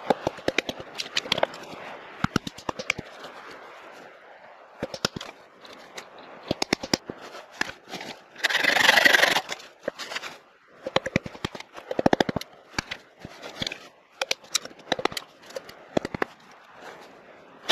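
A hatchet head being struck on its back with a small piece of wood, driving the blade into a log to knock out chips: repeated sharp wooden knocks in quick runs. Near the middle there is about a second of loud rasping noise.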